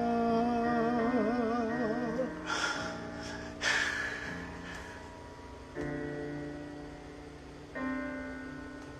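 A man's singing voice holds a final note with vibrato over a soft accompaniment, ending about two seconds in, followed by two short breathy sounds. Then two piano chords from the backing track strike near the middle and near the end, each fading away.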